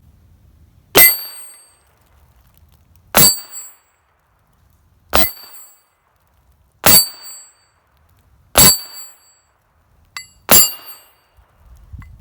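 Six shots from a Heritage Rough Rider .22 single-action revolver, fired one at a time about two seconds apart, each with a brief metallic ring.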